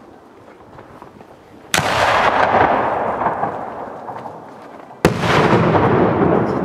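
Two fireworks bursting about three seconds apart, each a sharp bang followed by a long fading rumble.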